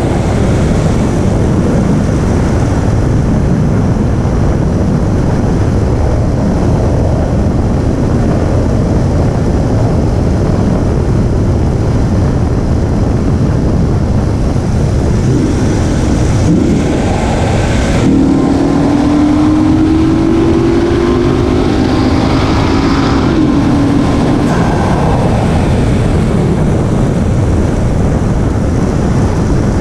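A 2017 Infiniti Q50's VR30 twin-turbo V6 and road noise, heard on the move. About eighteen seconds in, a low tone rises slowly for several seconds, then fades.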